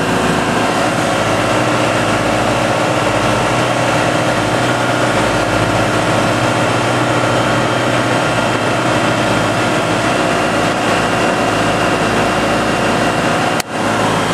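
Pipistrel Sinus motorglider's engine running steadily in flight, heard from inside the cockpit. The sound cuts out briefly near the end.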